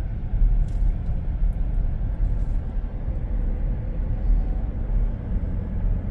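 Steady low rumble of a car on the road, an even noise with most of its weight in the low end.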